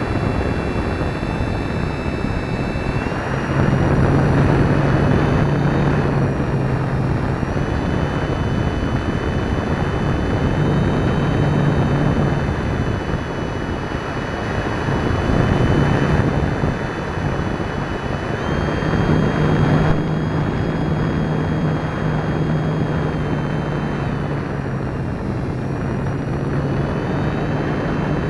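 Onboard sound of an electric RC model glider in flight: a steady high motor whine over a constant rush of wind, with a low propeller hum that comes and goes in stretches as the throttle changes.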